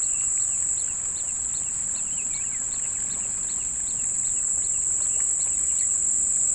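Steady high-pitched insect drone, with another insect chirping about three times a second, and a few short bird calls in the first couple of seconds.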